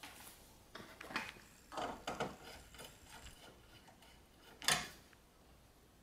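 Faint clicks and scrapes of a white neutral wire being handled and fitted under a terminal on an electrical panel's neutral bus bar. The clicks are scattered and irregular, with the sharpest one a little under five seconds in.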